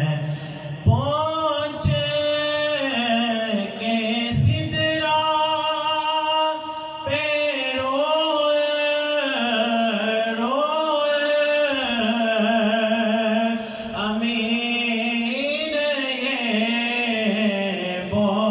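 A man chanting unaccompanied into a microphone: melodic Islamic devotional recitation in long held, ornamented notes, with short breaks for breath.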